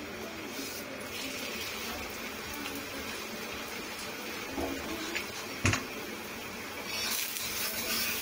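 Paratha cooking on a hot iron tawa, a steady hiss that grows louder near the end. A single sharp knock comes about two-thirds of the way through.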